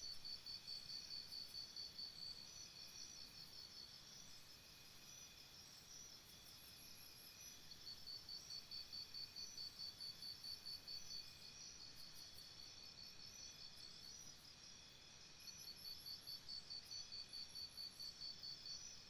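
Crickets chirping faintly, several at once: one sings trains of rapid even chirps lasting a few seconds, stopping and starting again twice, over a steady chorus of others at different pitches.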